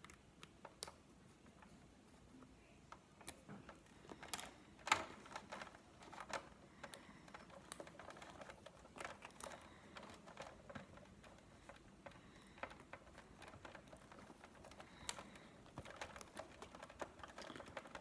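Faint, irregular small clicks and light scraping of a screwdriver and fingers working on the plastic mechanism of a Big Mouth Billy Bass singing fish while its screws are being undone; the sharpest clicks come about four and five seconds in.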